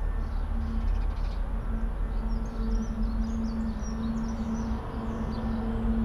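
Steady low rumble and drone of distant heavy machinery or truck engines, the drone breaking off briefly a few times, with songbirds chirping over it.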